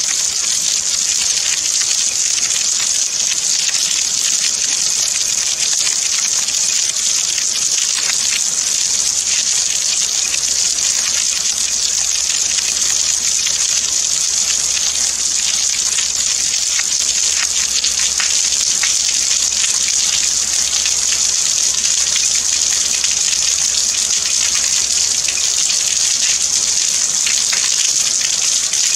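Steady rain falling: an even, high hiss sprinkled with countless small drop ticks, holding the same level throughout.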